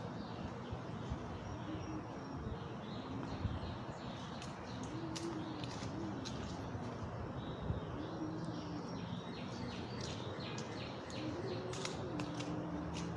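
Outdoor birdsong: small birds chirping, with a low cooing call rising and falling every second or two. A few sharp knocks stand out about a second in, near three and a half seconds and near eight seconds.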